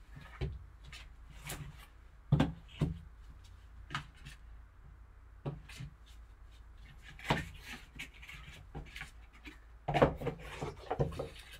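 Gloved hands handling a cardboard card box and its foam insert: rubbing, rustling and scattered light knocks, with a cluster of sharper taps near the end as the box lid is shut.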